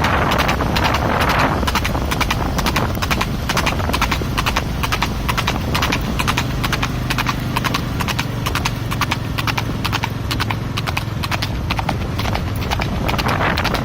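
Horse's hooves striking the ground in a quick, even clip-clop as the horse is ridden.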